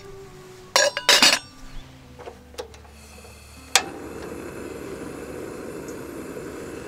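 A stainless steel pot and its lid clinking as they are set on a camp stove. About four seconds in there is a sharp click, then a steady hiss as the gas burner lights to boil the water.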